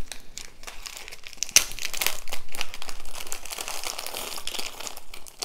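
Thin plastic bead bag crinkling as it is opened and handled, with small glass beads clicking against each other as they are shaken out, the clicks growing busier about a second and a half in.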